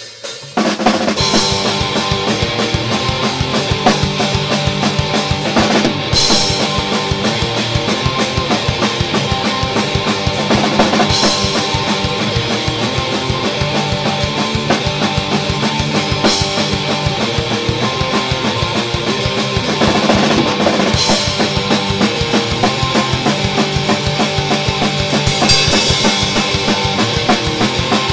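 Band rehearsal: an electric guitar and a drum kit playing a song together, the full band coming in about half a second in. A cymbal crash accents the beat roughly every five seconds.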